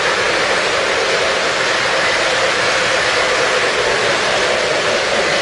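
Electric model freight train running along its track: a steady whirring rumble of wheels and motor as the cars roll past.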